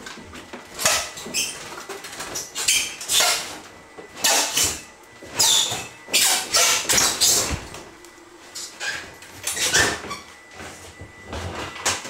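A built-in wall oven's sheet-metal casing being worked out of its cabinet opening and carried off: an irregular series of scrapes, creaks and metal rattles, with a sharp low thump about halfway through.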